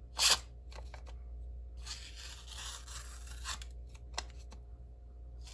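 Sharp folding-knife blade slicing through sticky-note paper: one quick cut about a quarter second in, then a longer rasping slicing pass from about two to three and a half seconds, with a few light clicks. The edge is cutting cleanly because it is very sharp.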